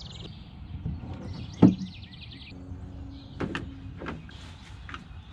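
Knocks and clunks of a small sailboat's rig being handled as the sail is readied for hoisting, the loudest about a second and a half in, with a short squeak near the middle. Birds chirp in the background.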